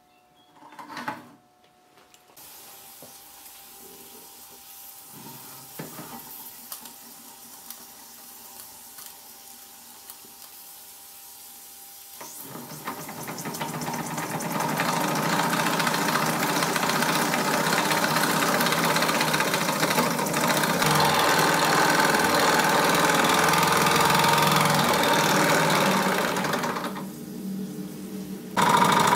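Mamod SE3 twin-cylinder superheated toy steam engine. A faint steady hiss while its boiler heats over the methylated-spirit burner, then, once up to pressure, the regulator is opened about twelve seconds in and the engine runs with a steady mechanical beat and the hiss of exhaust steam.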